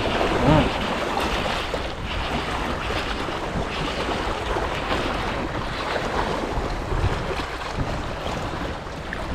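Steady wind rushing on the microphone over a wash of sea water, with a brief voice just after the start.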